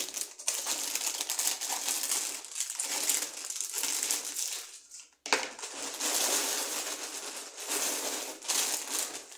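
Plastic cereal bag crinkling and rustling as it is handled and pulled open. It stops briefly about five seconds in, then starts again suddenly.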